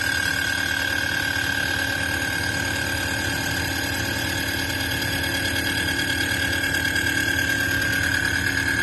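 CNC machine running: a steady high whine over a low hum, holding an even level throughout.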